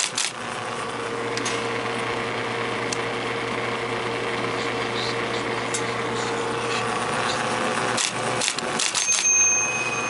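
IBM Memory 100 electric typewriter running with a steady motor hum, a few isolated clicks, then a quick run of type-element strikes about eight seconds in. These are test keystrokes made while trying to reproduce its fault of printing wrong characters, which comes from the tension on the solenoid-pulled cables. A thin high steady tone sounds briefly near the end.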